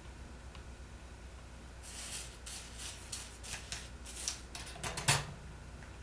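A run of short rustling and scraping handling noises, like tape or wires being worked by hand, starting about two seconds in and stopping about a second before the end, over a steady low hum.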